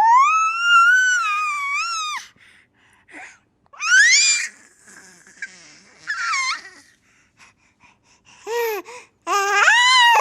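A baby's high-pitched squeals: one long held squeal at the start, then shorter rising and falling squeals about 4, 6 and 9 seconds in, with quiet breaths between.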